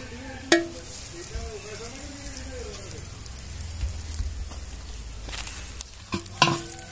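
A clay cooking pot knocks once with a short ring as it is taken off a bed of hot ash, uncovering pot-roasted chicken that sizzles and crackles over the embers. Near the end the pot knocks twice more as it is set down.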